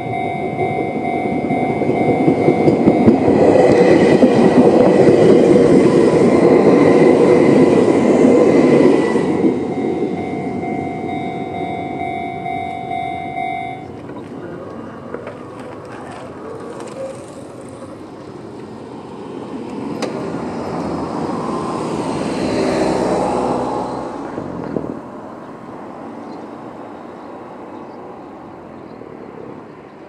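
Level-crossing alarm ringing its steady electronic Chichibu-style tone while a Chichibu Railway 7500 series electric train runs through the crossing, the train loudest from about 3 to 9 seconds in. The alarm cuts off about 14 seconds in as the barriers begin to lift, and a road vehicle passes a little later.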